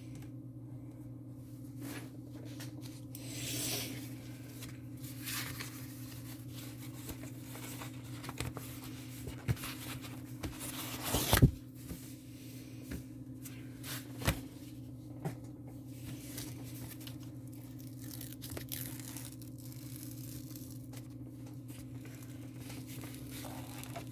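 Intermittent rustling and crinkling of a diamond painting canvas and its packaging being handled, with a few sharp clicks and one louder rustle about 11 seconds in, over a steady low hum.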